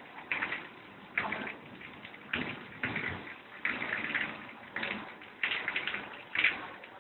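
Rain in a thunderstorm, heard through a phone's microphone. It comes in irregular gusty bursts, about one a second.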